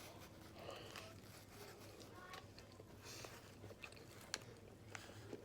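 Near silence with faint chewing and a few soft mouth clicks.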